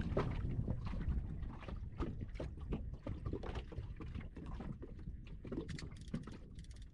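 Water lapping and slapping irregularly against the hull of a small fishing boat, over a low rumble of wind on the microphone.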